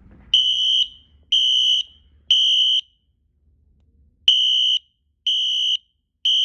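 Wheelock Exceder HSR fire alarm horn strobes sounding the temporal-3 evacuation pattern during a system test. Each beep is a loud, high, piercing half-second horn tone, about one a second. Three beeps sound, then a pause of about a second and a half, then the next group of three begins.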